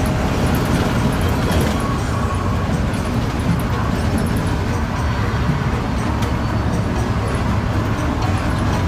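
Steady engine and road rumble of a bus with a Mercedes-Benz four-cylinder engine cruising on a highway, heard from inside the cabin.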